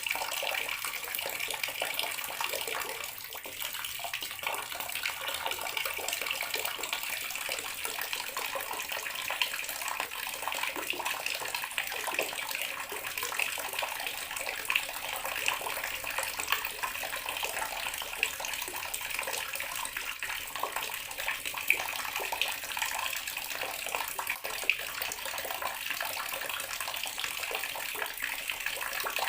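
Water running steadily from a bathroom sink tap, the stream splashing into the basin.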